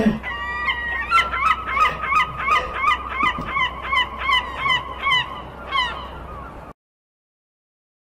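Seagull calling: a long run of sharp, repeated laughing calls, about three a second, that cuts off suddenly near the end.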